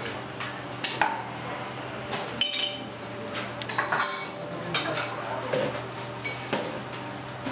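Metal spoon clinking against a ceramic soup bowl as soup is stirred and scooped, a few separate clinks over a steady low hum.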